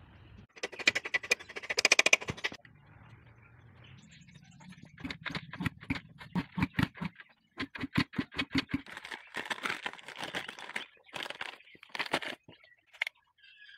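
Hand tools and metal engine parts clicking and rattling while a Yamaha RX100's engine is worked on. Starts with a run of rapid clicks, then comes in short clicking bursts, some with a brief squeak, until near the end.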